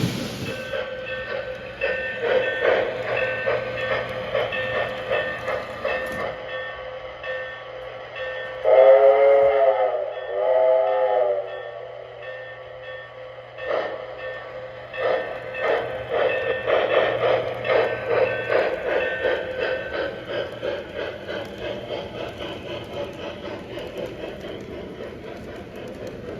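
Model train running on layout track, with a steady motor or sound-unit tone and continuous clicking of wheels over the rail joints. About a third of the way in, the locomotive sounds two horn blasts, the first a little longer than the second.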